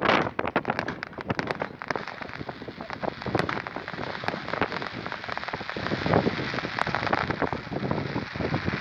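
Aerial firework shells bursting overhead. A bang comes right at the start, then dense crackling from the crackling stars, many small pops close together, which swells again from about six seconds in.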